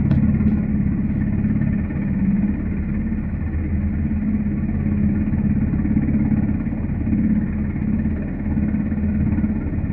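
UH-60 Black Hawk helicopter running on the ground with its rotors turning: a steady low drone from its twin turboshaft engines and rotor blades, with a fast, even pulsing.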